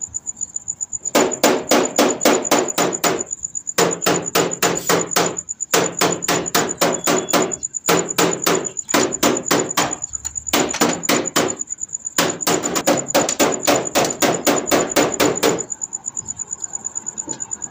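Socket ratchet clicking rapidly in runs of one to three seconds, about six clicks a second, as a bolt on the timing-chain sprocket of a Toyota 2TR engine is undone.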